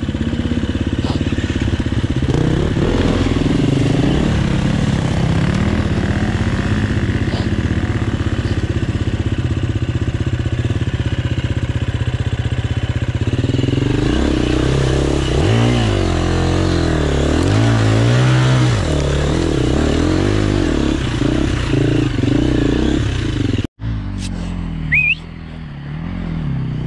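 Enduro dirt bike engine revving up and down as it is ridden, its pitch rising and falling again and again. The sound cuts out for a moment near the end.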